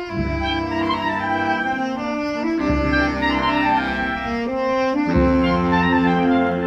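Marching wind band playing together: clarinets and saxophones carry the tune over euphoniums and tuba, whose deep bass notes change about every two and a half seconds.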